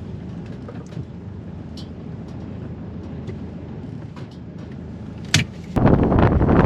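Low rumble of a car heard from inside the cabin, with a sharp click about five seconds in. Near the end, loud wind noise suddenly takes over, gusting on the microphone.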